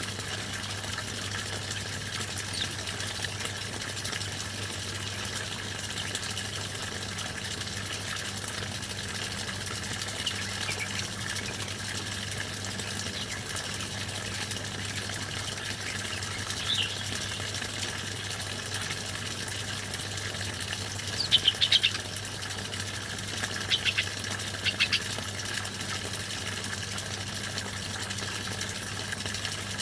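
Small songbirds giving short, scattered chirps, the loudest cluster about two-thirds of the way through, over a steady rushing background with a low hum.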